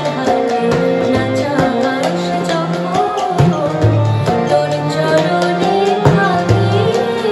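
Shyama Sangeet (Bengali devotional song): a woman's voice singing over harmonium, with tabla playing a steady rhythm of strokes throughout.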